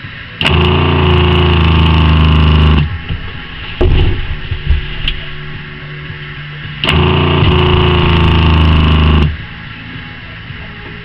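Flojet water pump switching on and running with a steady hum for about two and a half seconds, cutting off suddenly, then doing the same again a few seconds later, under its newly fitted pressure switch. A brief knock falls between the two runs.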